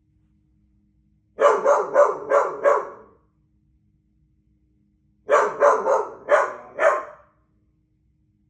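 Doodle dog barking in two runs of about five quick barks each, a couple of seconds apart.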